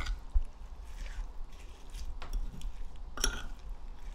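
A metal spoon tossing wild chives in a soy-based sauce in a ceramic bowl: soft wet squishing, with a few sharp clinks of the spoon against the bowl, the loudest a little after three seconds in.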